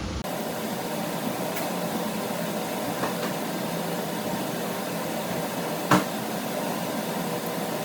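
Steady background noise with a faint hum, broken by a few light clicks, the loudest about six seconds in.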